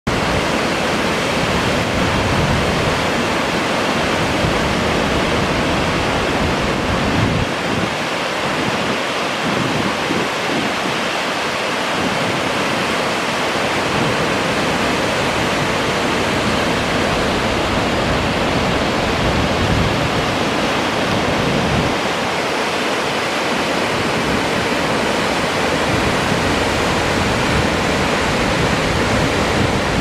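Waterfall pouring into a plunge pool, a steady loud rush of falling water spread across low and high pitches, with no let-up: the lowest of the Riva (Reinbach) Falls.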